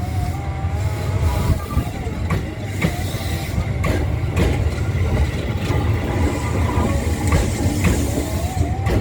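Electric train running on the rails: a steady low rumble broken by sharp clicks of the wheels over rail joints, roughly once a second, with a wavering high tone coming in near the end.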